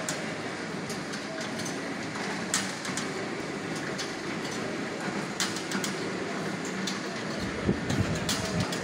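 Jute cloth sheet-feeding machine running on a conveyor: a steady mechanical rattle with sharp clacks every few seconds.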